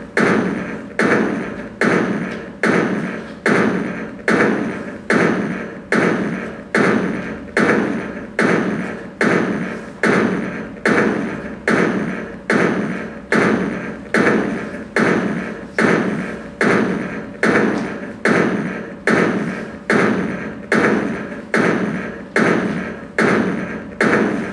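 A steady rhythmic beat: one percussive hit repeating at an even pace, about three every two seconds, each one dying away before the next.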